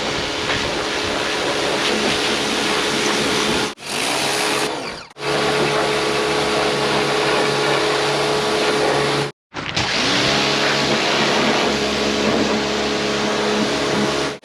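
Pressure washer running and spraying: a loud hiss of water spray over the pump unit's steady hum. It breaks off abruptly a few times and starts again.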